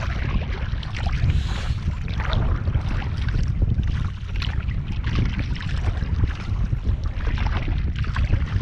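Wind buffeting the microphone in a steady low rumble, with the splash of a kayak paddle's blades dipping into the water on alternate strokes.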